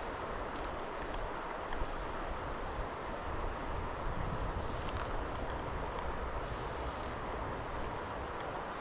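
Steady rush of flowing river water, with a few short, high bird chirps over it.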